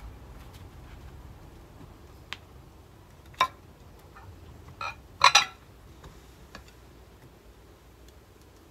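A few sharp clinks and clatters of dishes and cutlery being set down while a table is laid, the loudest a quick double clatter about five seconds in, over a steady low background rumble.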